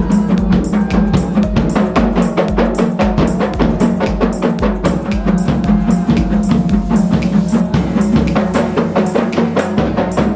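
Rebana frame drums and a large bass drum beaten together in a fast, even rhythm.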